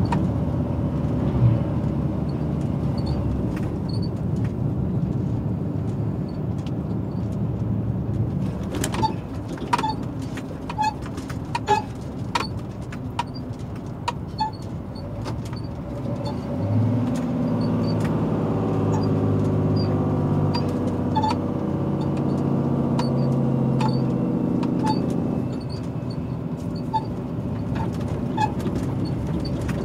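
Scania R450 truck's diesel engine and road noise heard inside the cab, with scattered light ticks. A bit past halfway through, a louder steady drone comes in and holds for about eight seconds before dropping away: the engine brake working as the truck slows.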